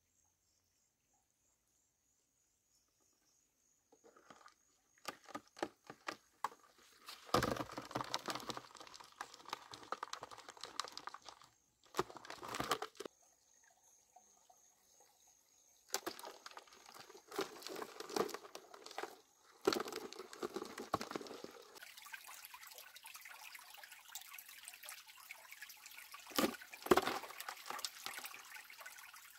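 Water being handled: irregular splashes and drips in bursts, with a steady faint trickle in the last third.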